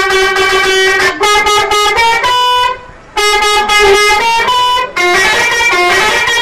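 Telolet horn on a small bus: a multi-note musical horn playing a tune. It holds one long note for about a second, then steps quickly through shorter notes, pauses briefly about three seconds in, and carries on.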